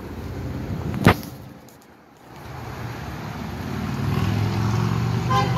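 A sharp click about a second in. Then a low vehicle rumble swells and grows louder.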